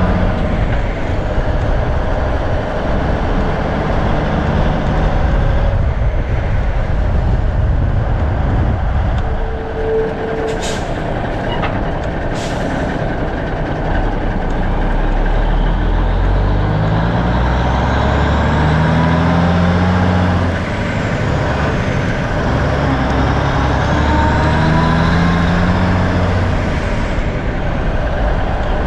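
Cummins diesel engine of a 1984 Freightliner cab-over truck pulling the truck down the road, with road noise, heard from a camera mounted outside on the cab. In the second half the engine's pitch climbs, drops and climbs again as it works up through the gears, and two sharp clicks come about halfway through.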